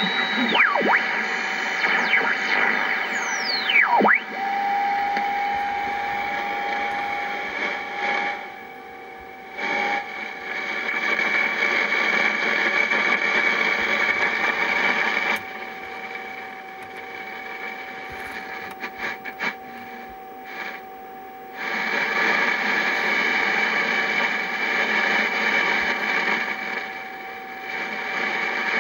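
Yaesu FRG-7 shortwave receiver being tuned: hiss and static from its speaker, with whistles sweeping down in pitch in the first few seconds. Then a steady whistle tone is held for a few seconds, twice, while the hiss drops low.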